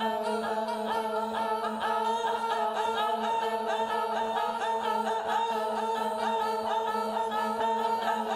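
Unaccompanied choir singing: several voices hold a steady chord while quick, short repeated notes run above it.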